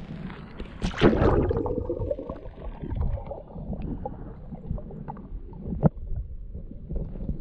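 A loud splash in stream water about a second in, then water sloshing and gurgling, with a sharp knock about six seconds in.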